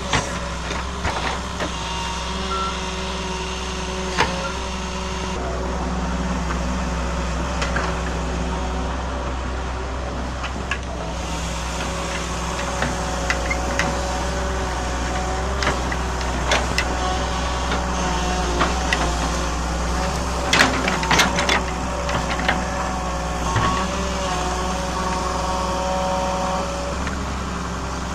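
Excavator's diesel engine running steadily, with whining tones that come and go and scattered clanks and knocks as the machine works the ground.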